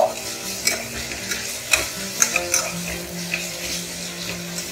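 Sliced onions with green chillies, garlic and ginger sizzling in oil in a stainless steel pressure cooker, sautéing to soften, while a metal spatula stirs them, scraping and clicking irregularly against the pan.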